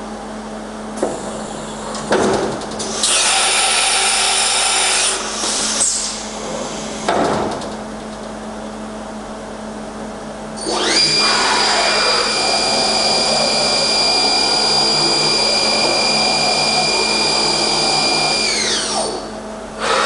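Leadwell VMC-40 CNC vertical machining centre running through a simple program, with a steady machine hum and several short whirring moves and gliding sweeps in the first half. About 11 s in, the spindle runs up to a steady high whine. It holds for about eight seconds, then winds down near the end.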